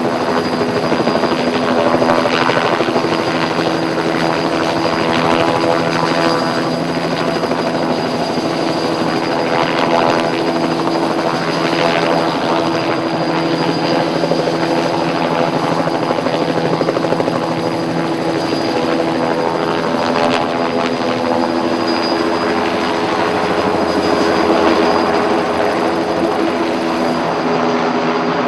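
Light helicopter hovering low with a load line slung beneath it, its rotor and engine running steadily.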